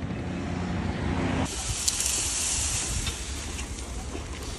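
Road traffic noise, then after a cut about a second and a half in, a steady hiss of steam rising off the open pans of boiling sugarcane juice at a jaggery furnace, with a low rumble underneath.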